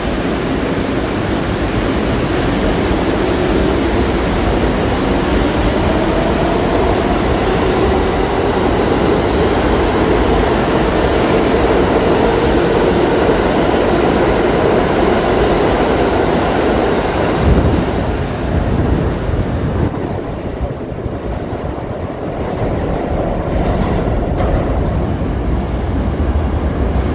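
New York City subway train of R62A cars pulling out of the station: steady wheel and motor noise with a slowly rising whine as it gathers speed, and a sharp knock about two-thirds of the way in. It then drops to a quieter rumble, building again near the end as another train approaches.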